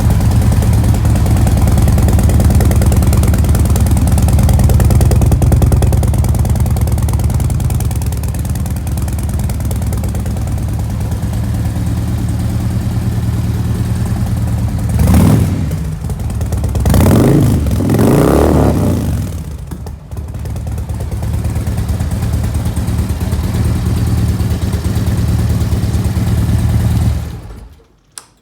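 2007 Harley-Davidson Street Glide's Twin Cam 96 V-twin idling loud through Vance & Hines slip-on mufflers. It is revved a few times about halfway through, settles back to idle, and stops near the end.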